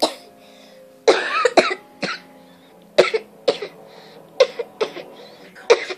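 A girl coughing in a series of short, sudden bursts, the longest and loudest about a second in.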